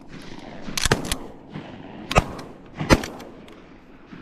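Shotguns firing at geese: several sharp shots about a second apart, two of them close together, each with a short echoing tail.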